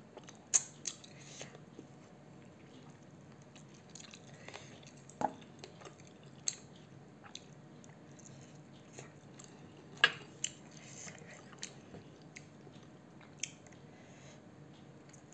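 Close-up eating sounds of a person biting and chewing a cooked chicken wing. There are sharp clicks and crunches now and then, the loudest about half a second and about ten seconds in.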